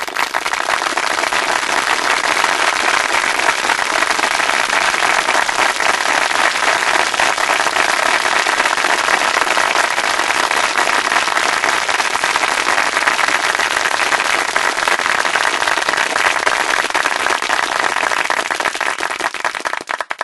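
Audience applause: dense, steady clapping from many hands that starts abruptly and cuts off suddenly.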